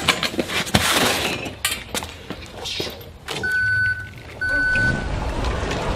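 Red hand truck rolling and clattering over pavement, with knocks and rattles. About three and a half seconds in come two steady beeps, each about half a second long.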